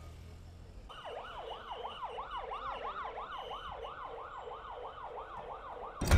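Ambulance siren sounding a fast up-and-down wail, about three rises and falls a second, starting about a second in. A sudden loud whoosh cuts in at the very end.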